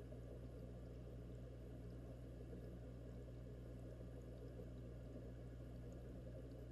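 Faint, steady bubbling of an aquarium's air-driven bubble streams over a constant low hum, heard from underwater inside the fish tank.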